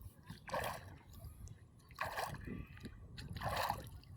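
Water splashing in short bursts, about four of them, roughly one every second and a half.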